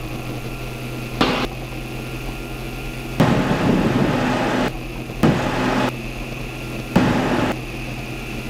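Cockpit noise of a hydrogen fuel-cell electric Piper demonstrator on its takeoff roll at full power, with the electric motor and propeller driven by battery and fuel cell together: a steady low hum, with several louder rushing stretches lasting a second or so.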